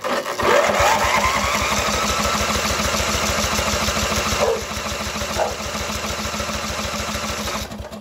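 Electric starter cranking a riding mower's engine for about eight seconds, the engine turning over with a fast, even chugging rhythm before it stops near the end. The starter is fed through jumper cables, replacing a set that could not deliver enough current to crank it.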